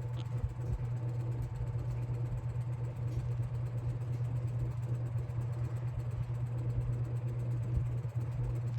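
Vintage Air King PL20E box fan's GE motor running on its low speed just after being switched on, giving a steady low hum with the whoosh of its metal blades. It is slow to get up to speed on low, which the owner thinks oiling the motor may cure.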